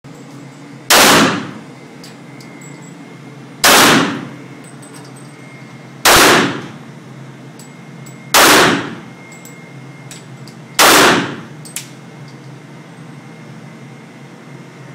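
Five single shots from a Taurus PT 24/7 semi-automatic pistol in .40 S&W, fired slowly about two and a half seconds apart. Each shot is loud and sharp, with a short echoing tail off the walls of an indoor range.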